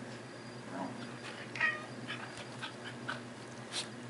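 Cat giving a short meow of protest about one and a half seconds in, while a Scottish terrier paws at it in rough play. There are soft scuffling clicks around it and a sharp tap near the end.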